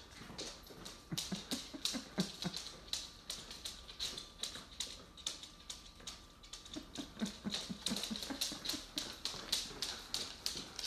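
Goldendoodles' claws clicking on a hardwood floor as the dogs walk and shuffle about, a quick irregular tapping of several clicks a second.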